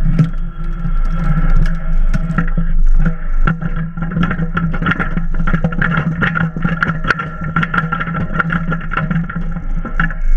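Hitachi EX22 mini excavator's diesel engine running steadily with a constant hydraulic whine, while the machine and its coupler-mounted log splitter rattle and knock repeatedly as it works.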